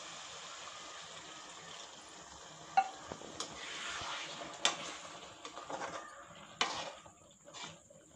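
Potato and badi curry sizzling in a metal kadai with a steady hiss, then a metal spoon stirring and scraping through it, with sharp clinks against the pan from about three seconds in.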